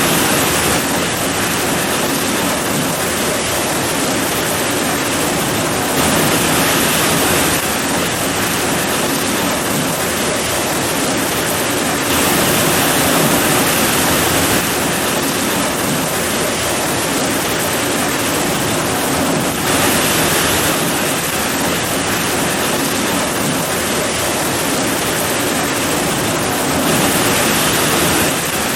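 Heavy rain pouring steadily, a dense hiss that swells a little louder every several seconds.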